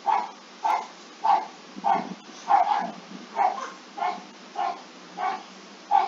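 A dog barking over and over at an even pace, a little under two barks a second.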